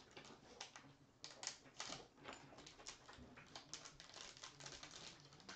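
Faint crinkling and crackling of a 2020 Bowman baseball card pack wrapper being handled and torn open.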